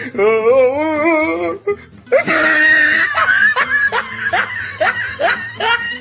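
A woman laughing: a long wavering laugh, then after a brief pause a run of quick, breathy rising laughs, about three a second.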